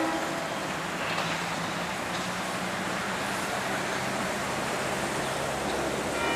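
Freight train's diesel locomotive approaching, its engine running with a steady low hum over a broad rumble. Near the end a horn starts sounding as a chord of steady tones.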